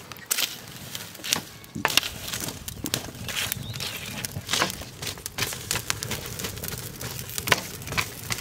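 Small fire of burning paper and charcoal crackling as a wooden pole stirs it. Irregular sharp snaps and rustles of paper and ash, a few louder than the rest.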